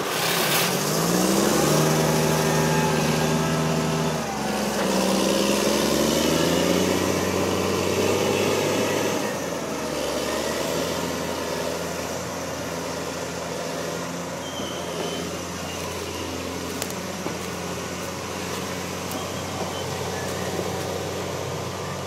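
John Deere skidder's diesel engine revving up hard twice in the first nine seconds, then settling to a steadier, lower run that grows fainter as the machine pulls away.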